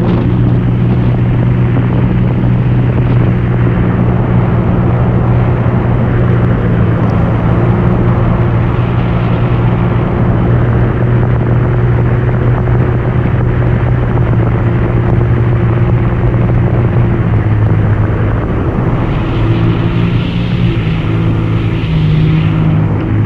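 Yamaha WaveRunner VX Deluxe personal watercraft running at speed, its engine giving a steady, loud drone with the hiss of water spray, the hiss growing stronger near the end.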